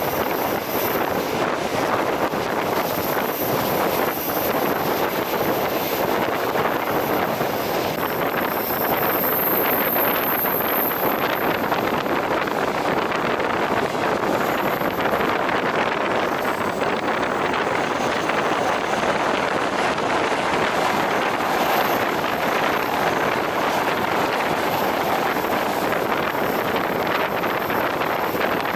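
A train running at speed, heard from inside the carriage: a steady rushing rumble of the wheels on the rails.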